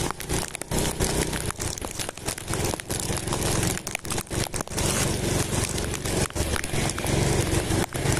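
Wind and road noise on a motorbike-mounted camera microphone while riding on a wet road, crackling and cutting out in many short gaps, with the bike's engine running low underneath.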